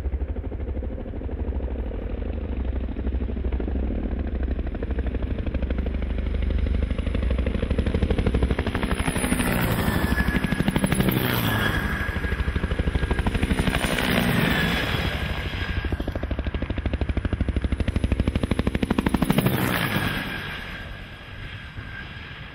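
Agusta-Bell AB 212 helicopter making low passes: the fast beat of its two-bladed main rotor, with turbine whine above it. It swells three times as it goes by, the pitch dropping each time, then fades near the end.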